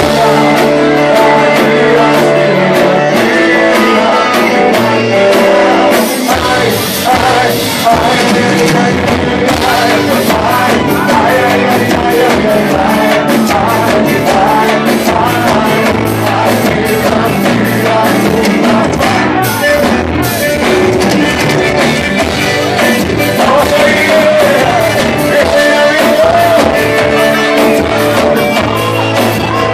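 Live band playing a country song loud and without a break: singing over guitar and a steady drum beat.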